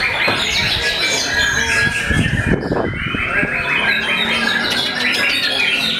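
Several caged white-rumped shamas (murai batu) singing at once, a dense overlap of rapid whistles and chirps that runs without a break.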